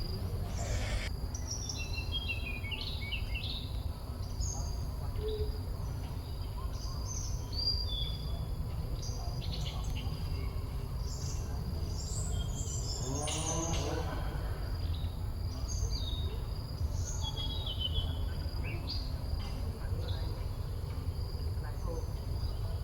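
Birds chirping, with many short high calls scattered throughout over a steady low outdoor rumble. About two-thirds of the way in comes one brief, lower call made of several quick wavering notes.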